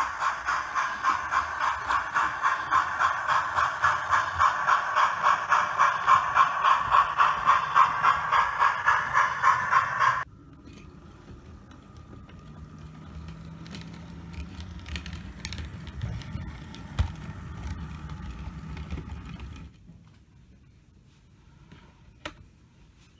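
Model train running on the track with a loud, quick, steady clicking and a motor whine. It cuts off suddenly about ten seconds in, giving way to the much quieter hum of a model diesel locomotive pulling wagons, which stops a few seconds before the end. After that come a few faint clicks from the layout.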